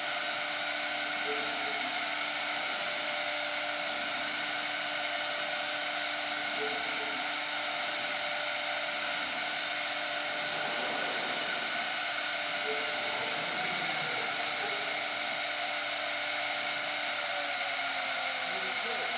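Industrial machinery running steadily: a motor's constant whine over a hissing, blower-like noise. Near the end the whine falls in pitch, as if the motor is slowing.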